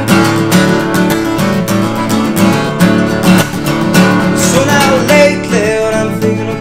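Acoustic guitar strumming a steady rhythm under a button accordion playing the melody: an instrumental break between verses of a folk song.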